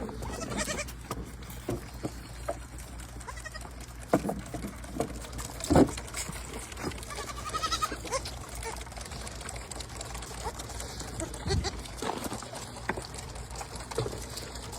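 An animal bleating in short, wavering calls, one near the start and one about eight seconds in, with a few knocks in between, the loudest about six seconds in.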